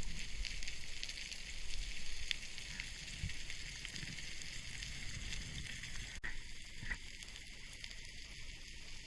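Underwater ambience: a dense, steady crackle of tiny clicks, typical of snapping shrimp on a rocky seabed, with a few dull low knocks.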